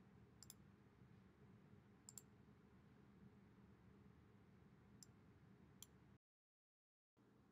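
Near silence with a few faint, separate computer mouse clicks, then a brief total dropout near the end.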